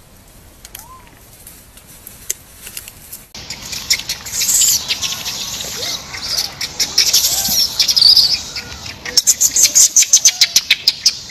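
After about three seconds of quiet, loud scratching and rustling right against the phone's microphone sets in suddenly, as a rhesus macaque handles the phone, ending in a fast run of loud clicks and taps, about nine a second.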